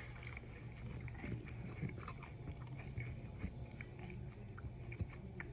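A person chewing and biting food, with many small crunchy clicks over a steady low hum.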